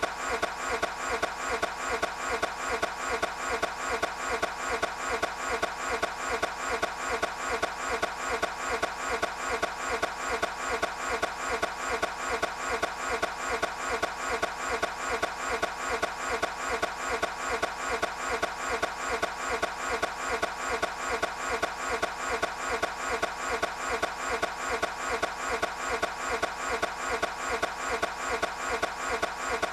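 A Toyota 86's engine-start sound cut short and looped over and over, a regular stutter of about two to three pulses a second, so the engine keeps cranking and never catches.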